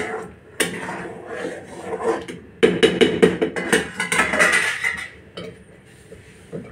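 A metal ladle stirring and scraping through thick upma in a metal kadhai, clinking and knocking against the pan, then the metal plate lid set back on top with a clatter.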